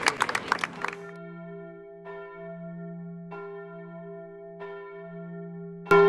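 Clapping that stops about a second in, then a church bell tolling with a long ringing hum, struck about every second and a quarter, with a louder strike near the end.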